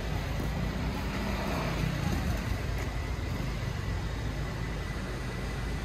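Steady low rumble of car and road traffic noise, with faint voices underneath.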